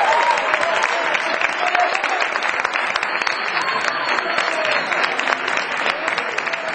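Audience applauding: a dense, steady patter of many hands clapping, with a few voices mixed in, easing off slightly toward the end.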